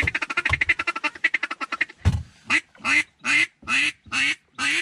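Duck call blown in a fast run of short quacks, about ten a second, then about six long, loud quacks evenly spaced to the end, calling incoming ducks toward the blind. A dull thump about two seconds in.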